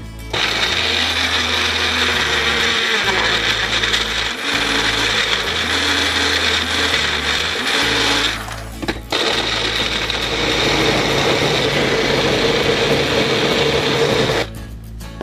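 Single-serve bullet-style blender running, its cup pressed down onto the base to grind frozen banana, frozen orange and greens into a thick smoothie. It runs for about eight seconds, stops briefly, then runs for about five seconds more and cuts off.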